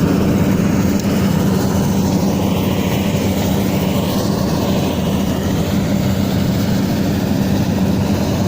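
Combine harvester's diesel engine running steadily with a constant low hum.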